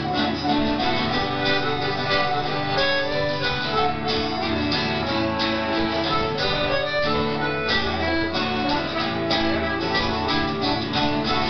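Live Celtic folk band playing a fast instrumental tune at a steady loudness: accordion and fiddle carry the melody over plucked, guitar-like string accompaniment.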